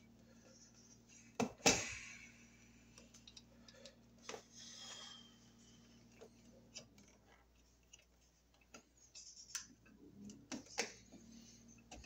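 Small sharp clicks and scrapes of a screwdriver and a metal-strapped toggle light switch being handled as wires are loosened from its brass screw terminals. The loudest is a pair of clicks about a second and a half in, with a short scratch a few seconds later and a cluster of lighter clicks near the end.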